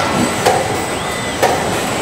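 Car assembly-line noise: a steady mechanical hum with three short sharp knocks.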